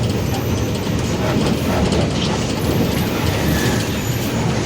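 Mercedes-Benz OF-1721 Bluetec 5 bus running steadily, a low drone from the engine and driveline with light rattling and clicking over it. The drone is the one the title puts down to the differential.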